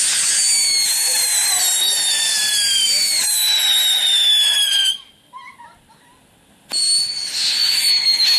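Whistling firework screeching, here the robot-shaped Cybertron novelty firework: a loud, high whistle sliding slowly down in pitch cuts off about five seconds in, and a second whistle starts a little under two seconds later.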